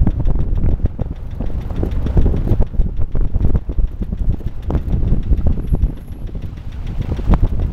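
Vehicle driving over a rough dirt and gravel road, heard from inside: a low rumble from engine and tyres with frequent knocks and rattles as it jolts over the stones.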